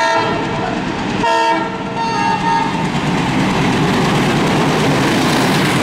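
WDM3D diesel locomotive's horn sounds in a few short blasts in the first couple of seconds as the express speeds past. Then comes the steady rush and wheel clatter of the train's coaches going by at speed.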